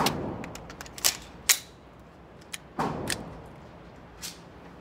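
Two muffled gunshots echoing in an indoor range, about three seconds apart. Between them come sharp metallic clicks from a handgun being handled close by.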